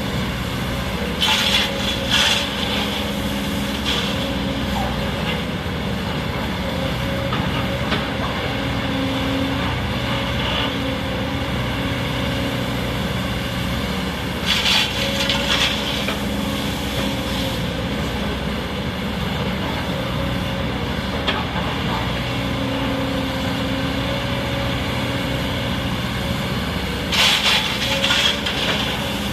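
Sany hydraulic excavator's diesel engine running steadily under load while it works, with three short, louder bursts of noise about 13 seconds apart.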